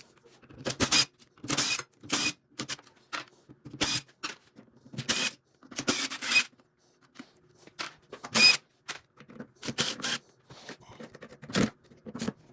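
Irregular sharp clicks and clanks from handling the internal parts and fittings of a tankless water heater being taken apart. A few of the knocks ring briefly, like metal.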